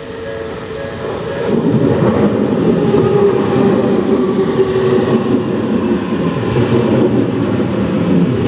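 Japanese level-crossing warning bell ringing in a quick repeating pattern. About a second and a half in, it is drowned out by the loud steady rumble of a Tokyu Toyoko Line train passing over the crossing.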